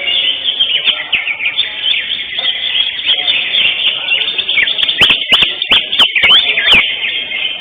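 Caged greater green leafbirds (cucak hijau) singing together in competition: a dense, continuous chorus of chirps and whistles. About five seconds in, a run of sharp, fast down-slurred calls cuts through.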